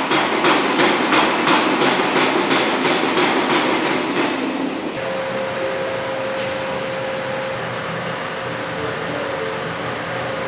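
Industrial machinery running. For the first four seconds or so there are rapid, regular knocks at about four a second; after they stop, a steady fan-like whir with a humming tone continues.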